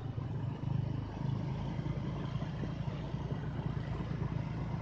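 Motorcycle engine running steadily while riding, a low rapid pulsing drone that swells slightly about a second in.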